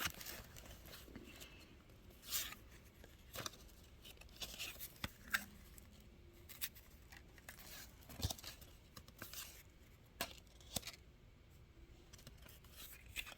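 Faint, scattered rustling and light taps of paper as old photographs and their paper envelope are handled.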